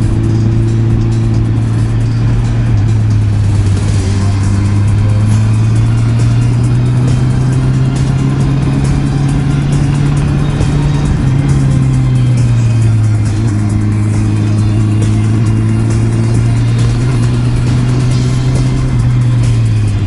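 Honda CB650R's inline-four engine running under way, its pitch climbing slowly, dipping about eleven seconds in and falling near the end, over a steady rush of wind and road noise.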